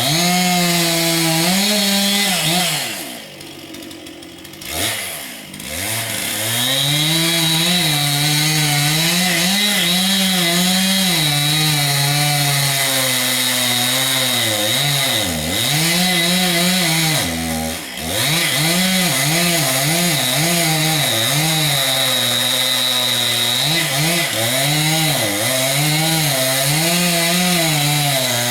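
Chainsaw cutting into a large tree trunk, the engine held at high revs with its pitch sagging and recovering as the chain loads up in the wood. A few seconds in it drops back and goes quiet for about three seconds, then revs up and cuts on, with another brief drop past the middle.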